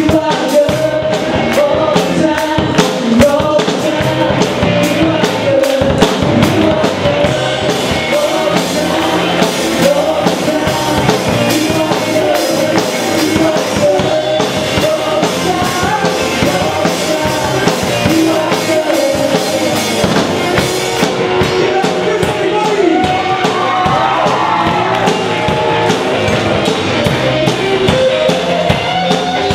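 Live band playing a pop gospel song: voices singing over a drum kit and guitar.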